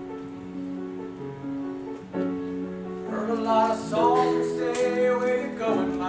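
Live theatre music: the instrumental introduction to a show tune, held notes and chords, growing fuller and louder about three seconds in.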